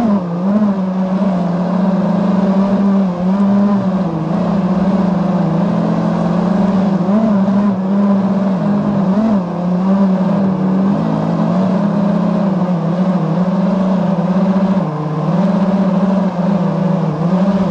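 FPV racing quadcopter's brushless motors whining steadily, heard through its onboard camera, the pitch wavering up and down with throttle changes.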